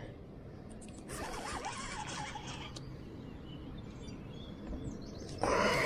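Baitcasting reel being cranked to retrieve line, a stretch of about two seconds starting about a second in, with a louder short burst of noise near the end.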